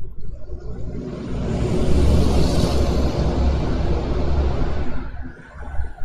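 A road vehicle passing close by in traffic: a low rumble with a rush of tyre and wind noise that swells to its loudest about two to three seconds in, then fades about five seconds in.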